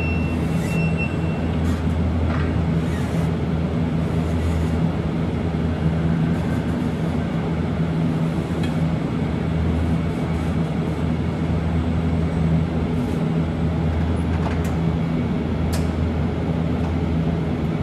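Steady low machine hum in a large warehouse, with a few faint clicks. A high beeping tone, like a forklift's travel alarm, stops about a second in.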